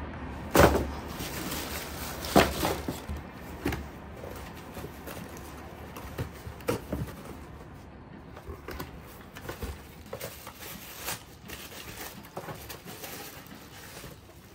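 Shoes and cardboard shoeboxes being handled: two sharp knocks about half a second and two and a half seconds in, then lighter taps, clicks and the rustle of paper wrapping.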